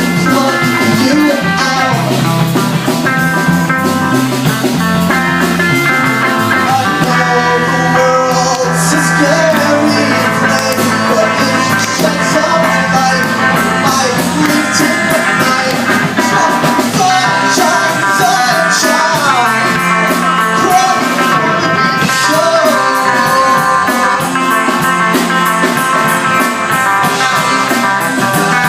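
Rock music with guitar to the fore.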